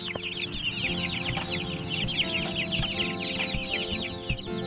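A flock of young Cornish cross meat chicks peeping nonstop: many quick, high, falling cheeps overlapping several times a second. Steady low background music runs underneath from about half a second in.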